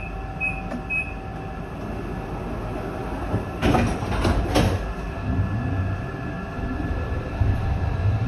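Končar NT 2200 low-floor tram standing at a stop: three short high door-warning beeps about half a second apart, then the doors sliding shut with a clatter about four seconds in. A low traction hum builds toward the end as the tram gets ready to pull away.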